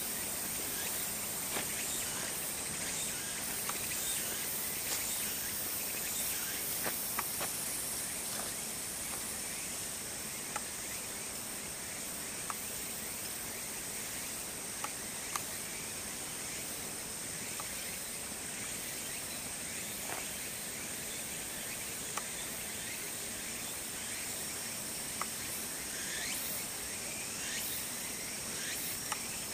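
Insects singing steadily at a high pitch over outdoor background hiss, with a second, lower high tone joining about a third of the way in and a few faint scattered ticks.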